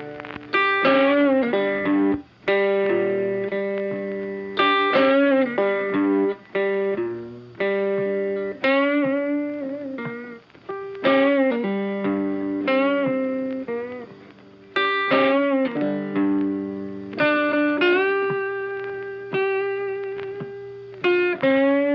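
Background music: a guitar melody of held notes, several of them sliding in pitch.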